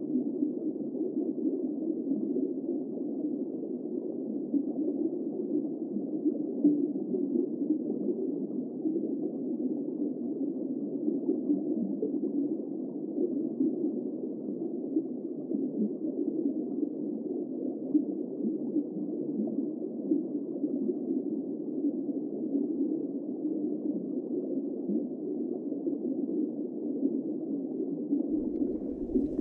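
Steady, muffled underwater ambience: a low, even rumble with a faint bubbling texture and no high sounds.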